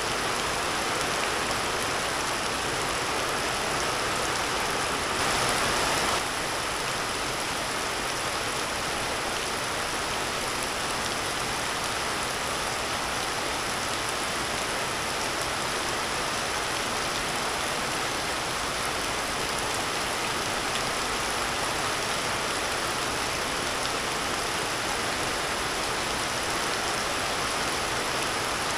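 Heavy rain falling steadily, a continuous hiss, with a brief louder surge about five seconds in.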